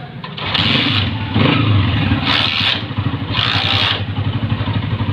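Honda CG 125's air-cooled single-cylinder four-stroke engine kick-started, catching about half a second in and running, with the throttle blipped about once a second.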